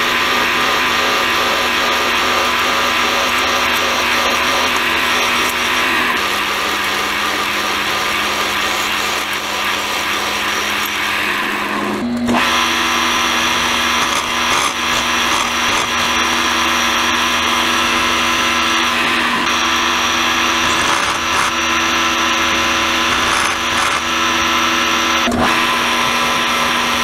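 Milling machine spindle running steadily as a drill bit bores into a steel bar, then, after a short break about twelve seconds in, an end mill cutting a slot in the bar. A steady motor whine runs under the cutting.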